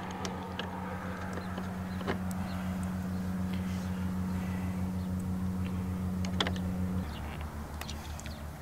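Light clicks and taps of small metal parts as port plugs are handled and fitted into a new D2 air-brake governor, over a steady low hum that drops lower about seven seconds in.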